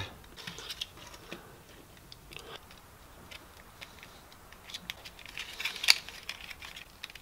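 Small plastic clicks and taps from a cheap toy drone's plastic shell being handled and its parts pressed together by hand, growing busier near the end with one sharper click about six seconds in.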